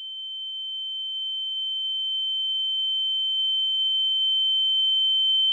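A single high-pitched electronic tone, a pure whistle-like note held at one pitch and growing steadily louder: the sound track of an animated title intro.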